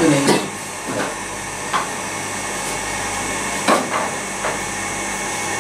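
Steady hiss and hum of room noise, with a handful of short knocks and clicks scattered through it, the sharpest nearly four seconds in.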